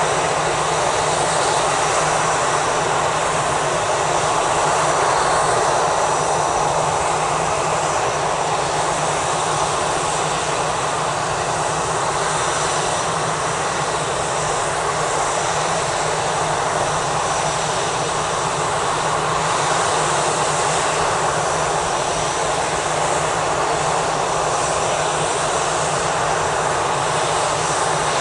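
Airbus A320's CFM56 turbofan engines running steadily at low thrust as the airliner taxis along the runway, a constant jet rush with a faint high fan whine above it.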